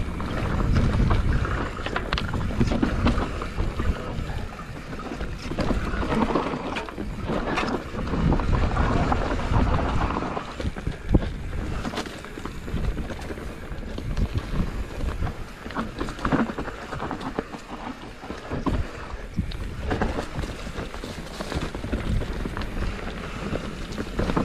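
Wind rushing over the microphone of a moving bike, with the rattle and knocks of the bike jolting over a rough trail.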